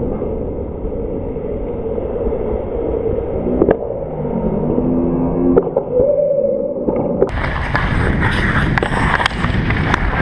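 Ice hockey play: skate blades scraping the ice and sticks and puck knocking, under a steady low rumble on the microphone. The sound is muffled at first; about seven seconds in it opens up into a run of sharp clicks and scrapes.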